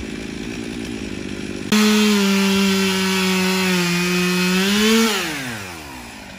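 Two-stroke chainsaw running at low throttle, then opened up about two seconds in and cutting into a large tree stump. Its pitch sags a little under load, rises again, then winds down as the throttle is released near the end.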